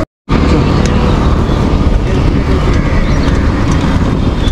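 Loud, steady city traffic noise with wind rushing over the microphone of a camera riding on a moving bicycle. The sound drops out completely for a moment right at the start, then carries on unchanged.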